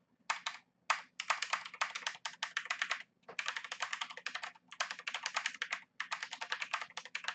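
Typing on a Xenics mechanical keyboard with clicky blue switches: fast runs of keystrokes broken by brief pauses.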